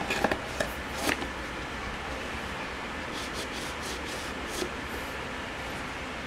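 Cardboard phone box being handled: a few sharp taps and scrapes in the first second as the inner box moves in its sleeve, then a few faint ticks, over a steady background hiss.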